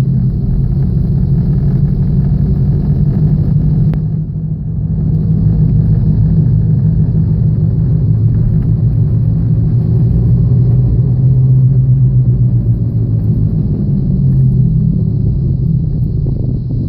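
2007 Chevrolet Aveo on the move with a steady low drone, the sound of a bad wheel bearing. The drone dips briefly about four seconds in and eases a little near the end.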